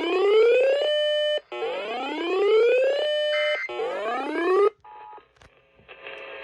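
Electronic whooping alarm tone sounding as a flash flood warning alert comes in. Each whoop rises in pitch, holds briefly and stops. There are two full whoops, and a third is cut off short about two thirds of the way through, leaving faint sound and then radio hiss.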